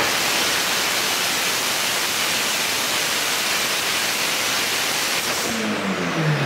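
Turbocharged 2.2-litre four-cylinder engine of a Mitsubishi Lancer Evolution IX at full throttle on a chassis dyno: a loud, steady rush with no clear engine note. Near the end the note comes back and falls as the revs drop off after the pull.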